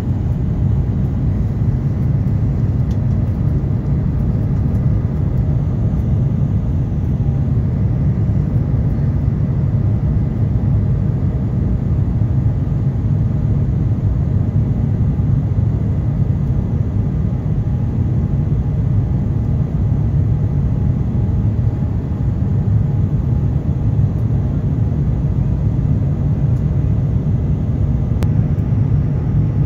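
Steady low rumble of an Airbus A350-900's Rolls-Royce Trent XWB jet engines and airflow, heard inside the cabin at a window seat beside the engine during the climb after takeoff.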